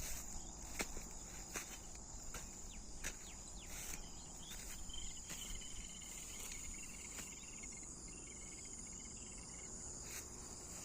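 Steady high-pitched insect chorus, with a second, lower trill joining from about four seconds in until near the end. A few soft clicks sound in the first few seconds.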